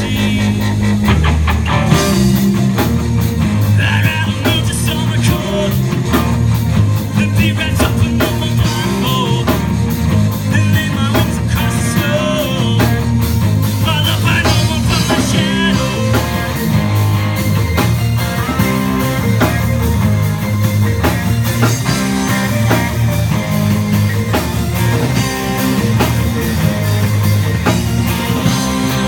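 A rock band playing live: a young man singing over a drum kit, bass guitar, electric guitar and keyboards.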